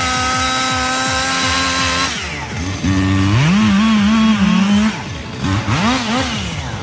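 A chainsaw engine runs at a steady high pitch at full throttle, then drops off about two seconds in. It is then revved up and down several times.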